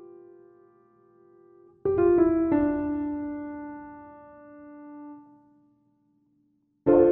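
Slow background piano music: a few notes struck together about two seconds in ring and fade away, a moment of silence follows, then new notes begin near the end.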